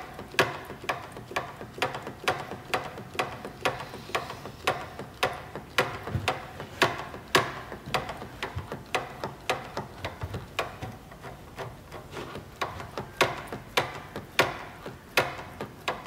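Front brake lever of a Suzuki GSX-R600's Accossato race master cylinder being pumped over and over, clicking about twice a second as it is squeezed and released. It is pumping the caliper pistons and pads back out against the discs after they were pushed back to bleed air to the reservoir.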